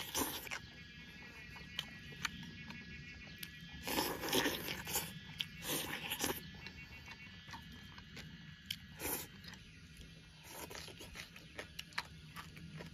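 Close-up eating sounds: a person biting and chewing pieces of cold chicken in chili sauce, with louder bites every few seconds and small sharp clicks between them.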